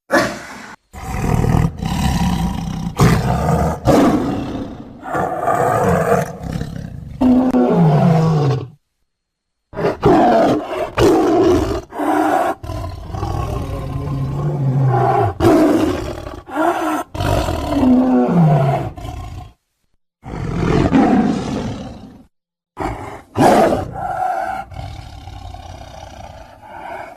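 A string of big-cat roars, growls and snarls: edited snow leopard sound effects built from snow leopard and tiger recordings. Some calls slide down in pitch, and the sequence stops dead for short silent gaps between clips, about nine and twenty seconds in.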